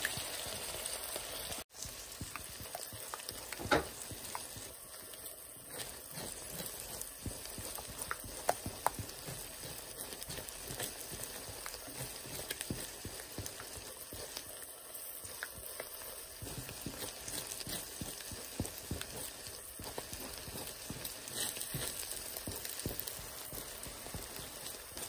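Two beaten eggs frying in olive oil in a pan, sizzling as a spatula stirs and scrambles them. Scattered small taps and clicks of the spatula against the pan run through the sizzle.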